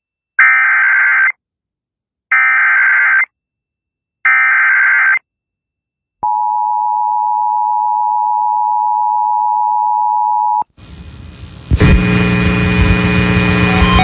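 Emergency Alert System SAME header: three short bursts of warbling digital data tones about two seconds apart. They are followed by the two-tone EAS attention signal, a steady chord held for about four seconds that cuts off suddenly. Loud music starts up near the end.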